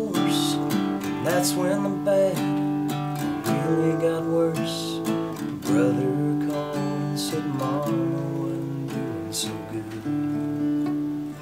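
Acoustic guitar played solo in an instrumental passage, strummed chords mixed with picked melody notes, the strums coming every half second or so.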